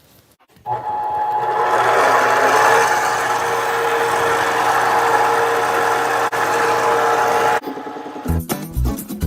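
A mini lathe running with a steady whine. It starts suddenly just under a second in and stops about a second and a half before the end. Guitar music follows near the end.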